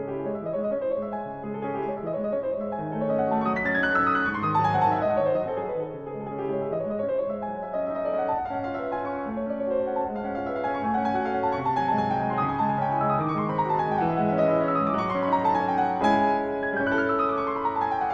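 Steinway concert grand piano played solo, a busy classical passage with several fast descending runs in the second half.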